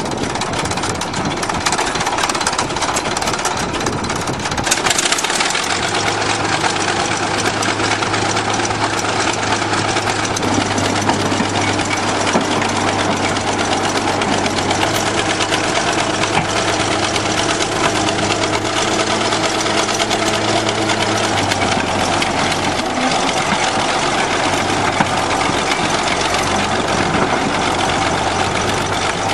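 Bulldozer's diesel engine running with a heavy clatter. A steady low hum sits under it for a stretch in the middle.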